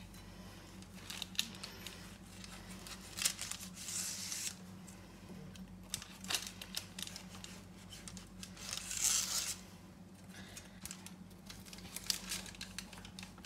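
Kitchen knife cutting through a slab of baked brownies with a crisp, crackly top, the blade crunching through the crust onto parchment paper. The longest rasping cuts come about four and about nine seconds in, with small crackles between.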